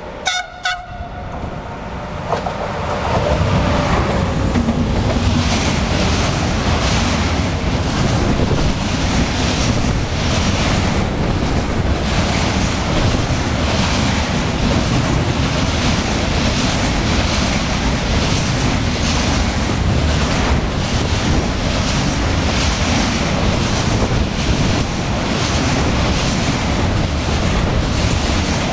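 Freight train hauled by an Italian E412 and E405 electric locomotive pair running through at speed. A short horn blast sounds in the first second. Then comes a loud steady rumble as the locomotives and a long string of wagons loaded with lorry semi-trailers roll past, with regular clicks of wheels over rail joints.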